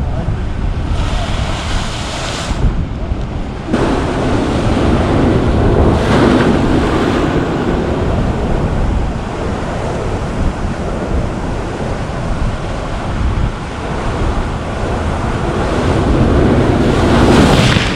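Surf breaking and washing over rocks, with strong wind rumbling on the microphone. The wash swells louder a few times, most of all near the end.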